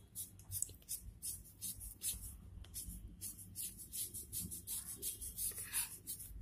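Pen scratching across newspaper as a curved line is drawn, in short strokes repeating a few times a second.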